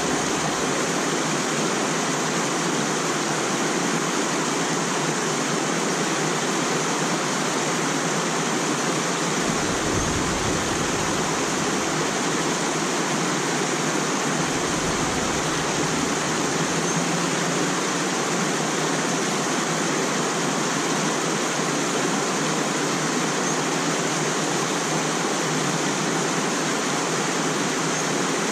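Small mountain-type stream running over stones, a steady rush of water. Twice, about ten and fifteen seconds in, a low rumble lasting a second or two is added.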